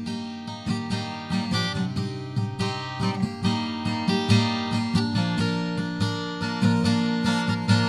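Background music: acoustic guitar strumming a steady pattern, with no vocals yet.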